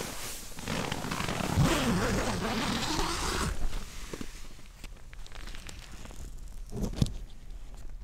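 Nylon tent fabric rasping and rustling close to the microphone for about three seconds, then quieter rustling and a single sharp knock near the end.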